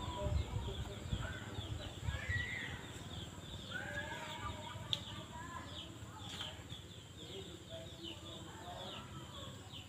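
Outdoor ambience of birds chirping, with faint distant voices. A low rumble of wind or handling on the microphone in the first couple of seconds.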